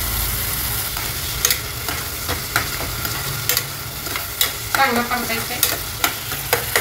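A steel ladle stirring a tomato masala in an enamel pot on a gas stove, clinking against the pot about nine times, with a scrape about five seconds in, over a steady sizzle of the frying masala.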